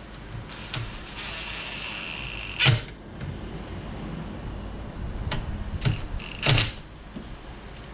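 Hand work fastening a turn-signal switch clamp onto a steering column: a series of sharp clicks and knocks of parts and tools, the loudest a little under three seconds in and again near the end. A steady higher tone lasts about a second, starting about a second in.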